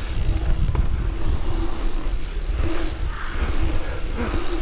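Mountain bike riding on a rider-carried camera: a steady low rumble of wind and tyres on the microphone, with a hum that comes and goes.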